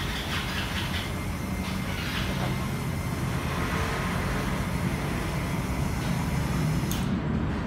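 Small electric motor driving a homemade release carriage along an aluminium rail, a steady mechanical whir. Near the end there is a short click and the whir drops away as the carriage stops automatically at the end of its travel.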